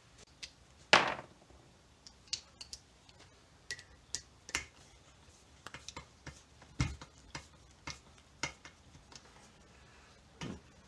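Scattered clicks, taps and a few knocks of hand tools and small metal parts being handled on a workbench, the loudest knock about a second in.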